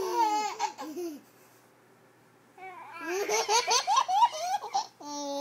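Baby laughing: a short burst at the start, then after a pause of about a second and a half a longer run of quick, high-pitched laughs, ending in a drawn-out vocal sound that slides down in pitch.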